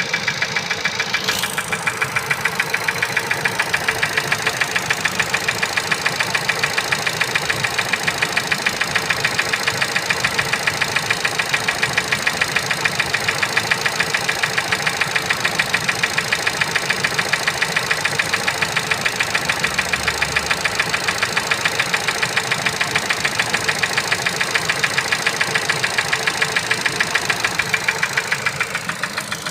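Ford Focus Mk3 125 hp engine running at a steady idle with a rhythmic knock that repeats several times a second: the engine knock the owner is recording.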